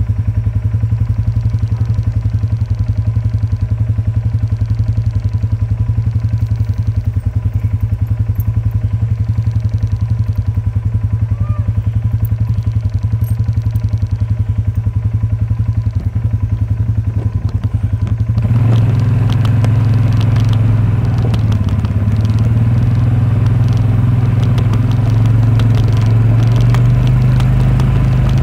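John Deere tractor engine running at a steady, even idle-like pulse. About eighteen seconds in it picks up speed and gets louder and rougher.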